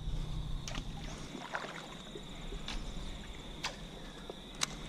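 A small hooked fish being reeled in on a baitcaster rod and reel, with water splashing at the surface. A few sharp clicks are spread through it, over a steady faint high tone.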